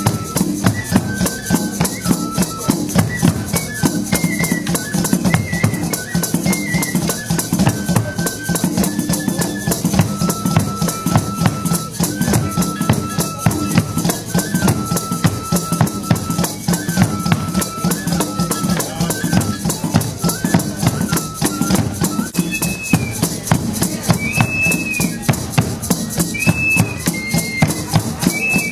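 Traditional indigenous-style ensemble: a small flute plays a simple, stepping high melody over steadily beaten drums and continuously shaken rattles. About three-quarters of the way through, the flute moves up to higher, briefly held notes.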